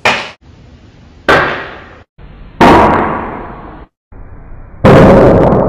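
Four loud, sharp, shot-like bangs. The first three come about a second and a quarter apart and the last after a longer gap, and each dies away, the later ones over about a second.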